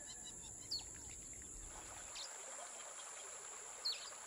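Outdoor tropical ambience: a few short, falling bird chirps over a steady high insect drone, with a faint hiss of water from spouts splashing into a pool.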